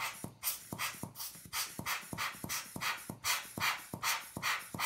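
Hand-squeezed rubber air blower pumped rapidly, about three quick puffs of air a second, each with a faint click, blowing dust off the camera's image sensor.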